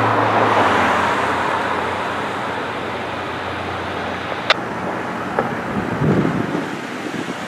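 Fire engine driving away through street traffic, its engine hum and road noise fading over the first couple of seconds. Steady traffic noise follows, with a sharp click about four and a half seconds in and a short rumble near the end.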